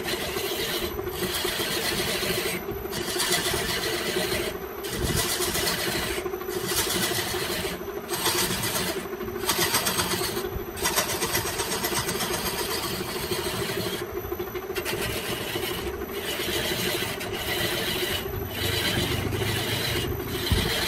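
Wood lathe running with a steady motor hum while a hand-held turning tool cuts the spinning bamboo workpiece: a hissing scrape that stops for a moment every second or two as the tool comes off the cut.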